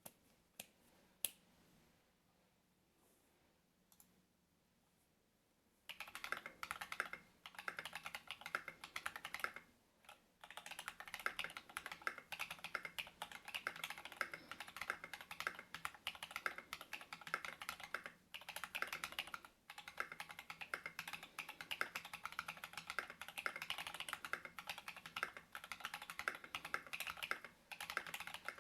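Typing on a Monstargear XO V3 mechanical keyboard with lubed and filmed Paco switches, a brass plate and SA-profile keycaps. A few single key clacks, then steady fast typing from about six seconds in, with a couple of short pauses.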